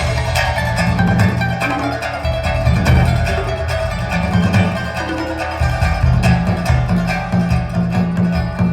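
Recorded music played back over hi-fi loudspeakers in a demonstration room: a plucked string instrument, guitar-like, over deep, pulsing bass notes.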